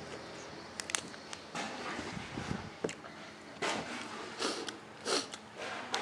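Close-up eating sounds of a man eating rice and waterhen with his fingers from a paper wrapper: chewing with a string of short, sharp mouth and hand noises, several across the few seconds.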